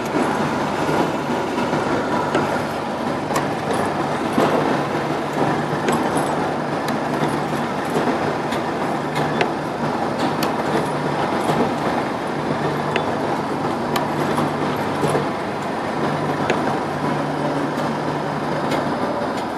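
Automatic CFL glass-tube wiping and brushing machine running: a steady mechanical clatter with frequent light clicks over a low hum that drops out now and then.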